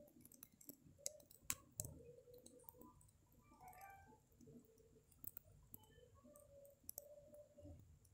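Near silence: faint room tone with a few scattered sharp clicks, the loudest close together about a second and a half in.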